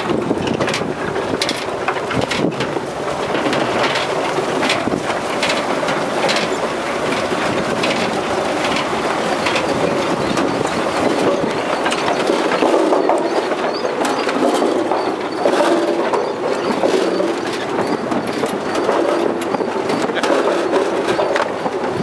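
Potato harvesting machinery running: a steady mechanical clatter of conveyors and rollers, with many small sharp knocks as potatoes and clods tumble through.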